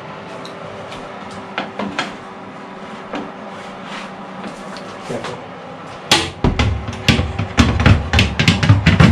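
A few light metallic clinks of a roasting tray being handled at an open oven over a steady low hum; about six seconds in, loud music with a heavy beat and deep bass comes in.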